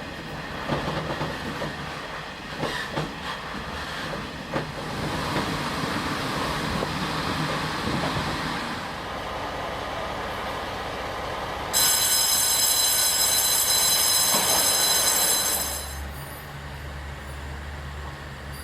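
Old passenger coach of a TRA ordinary train running on the rails: steady running noise with clicks and knocks from the wheels. About twelve seconds in, a loud, steady high-pitched tone starts abruptly and cuts off suddenly about four seconds later, leaving a low steady hum.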